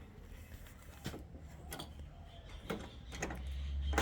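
Door lever handle being worked back and forth, its lock mechanism giving a few separate sharp clicks at uneven intervals; the handle turns without throwing the door's big bolts.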